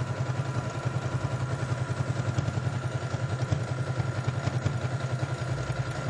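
Domestic electric sewing machine running steadily while sewing a decorative stitch: a fast, even needle rhythm over a faint motor whine.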